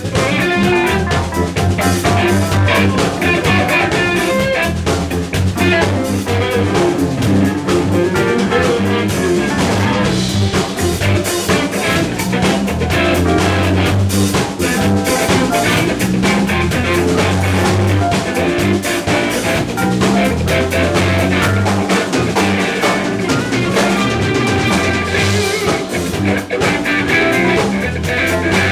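Live blues band playing: drum kit, bass guitar, keyboard and electric guitar together, with a steady driving beat and a walking bass line.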